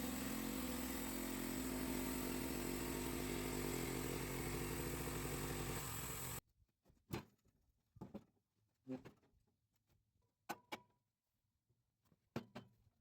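Portable band sawmill's gasoline engine running steadily, cutting off suddenly about six seconds in; after that near silence broken by a few short knocks.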